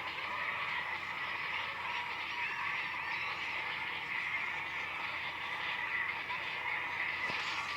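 A steady, dense chorus of many overlapping animal calls.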